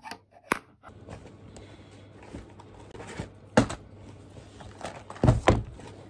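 Things being handled and set down on a desk: a few sharp knocks and thumps, the loudest about three and a half seconds in and two close together just past five seconds, over a low steady room hum.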